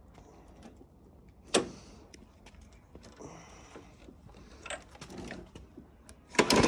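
Light clicks and a single knock about one and a half seconds in, then near the end a sudden loud pull on the recoil starter cord of a Briggs & Stratton 450 mower engine, cranking it over with the spark plug out and a compression gauge fitted.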